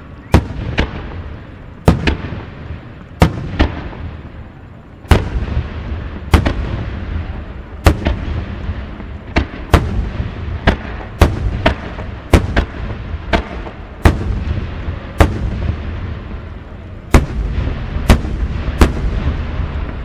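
Star mine fireworks finale: a rapid barrage of aerial shell bursts, sharp booms roughly once a second and sometimes in quick pairs, over a continuous low rumble and crackle.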